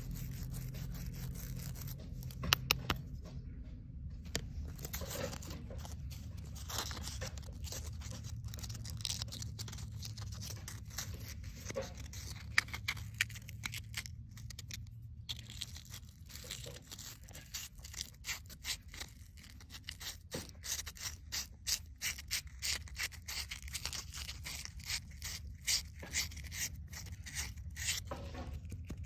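Scraping and rubbing on a small metal motorcycle fuel valve body as it is cleaned by hand: a wire brush scrubbing it, and abrasive paper worked inside its outlet in quick strokes, about two a second, through the second half. A steady low hum runs underneath.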